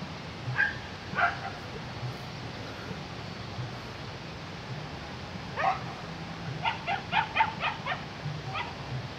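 Hunting dogs yelping while chasing a civet: two single yelps near the start, then a quick run of about seven yelps around seven seconds in, with a last yelp near the end.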